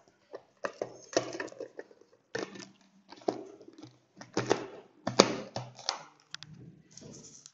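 Plastic clicks and rattles from a Pigeon hand chopper, its lid being fitted and turned on the bowl with pieces of dried coconut inside, an irregular run of sharp clicks about once or twice a second.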